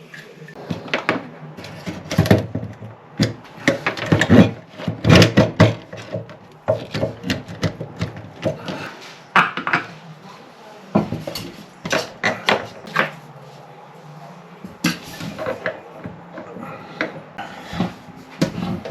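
Irregular knocks, clatter and rubbing of tools and faucet parts being handled at a sink.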